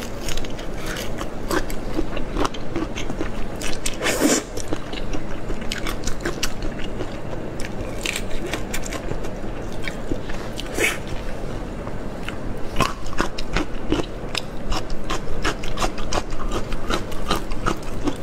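Close-miked eating of soy-sauce marinated whole shrimp: shells cracking and being peeled apart by hand, with chewing and wet mouth sounds. There is a run of small clicks and crackles, with louder bursts about four and about eleven seconds in.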